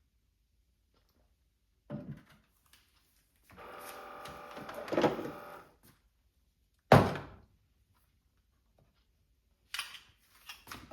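Espresso and latte equipment being handled on a counter. There is a light knock, then a few seconds of scraping, then one loud sharp thunk, and a few small clicks near the end.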